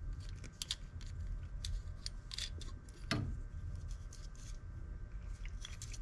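Light metal clicks and small scrapes as a lock nut is spun by hand onto a screw through an aluminium bracket plate, with nylon washers and an aluminium tube spacer on the screw. The clicks come irregularly, with one louder knock about three seconds in.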